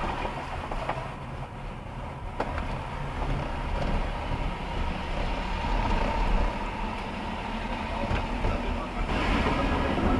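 Steady low road and engine rumble inside a moving car, picked up by a dashcam. Near the end a brighter hiss joins in, the sound of tyres on a wet road.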